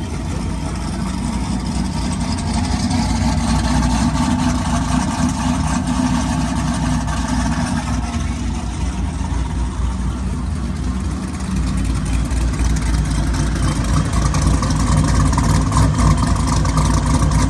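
Cammed GM V8 idling with a choppy, lopey beat, running steadily and loud, a little louder in the second half.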